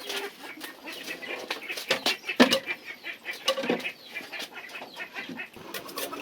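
Chickens clucking, with scattered short clicks and knocks.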